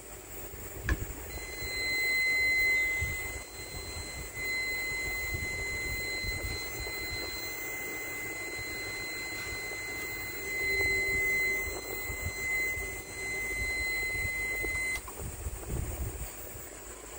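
Electronic buzzer of an opened inverter sounding one continuous high beep for about fourteen seconds. It starts just after a click and cuts off suddenly.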